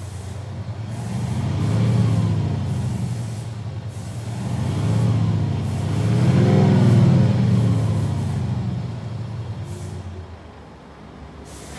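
Mercedes GLE V167 revved three times while standing still, each rev rising and falling back, the third the longest and loudest, then settling to idle near the end. Its exhaust note is boosted by a Panthera LEO MAGNA Sound Booster active-exhaust speaker set to Eco mode.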